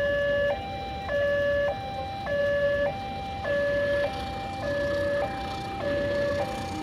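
Railway level-crossing warning alarm sounding its two-tone electronic signal: a louder lower tone and a higher tone alternate, each about half a second, in a steady repeating cycle. It warns of an approaching train while the crossing is closed.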